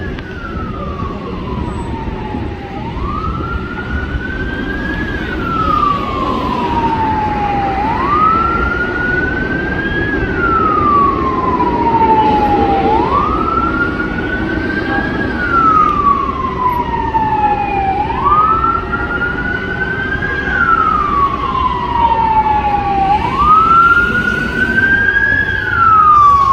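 Fire engine's Federal Q mechanical siren wailing in slow cycles about five seconds apart: each time the pitch climbs quickly, peaks, then falls away over a couple of seconds. It sounds over steady street traffic.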